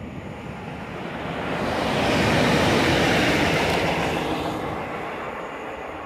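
EP07 electric locomotive coupled with an SM42 diesel shunter passing by on the track: a rushing rail noise swells to a peak about halfway through, then fades as the locomotives move away.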